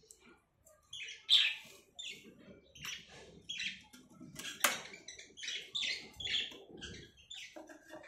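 Caged budgerigars chirping, a steady string of short high chirps with one sharper, louder call a little past the middle.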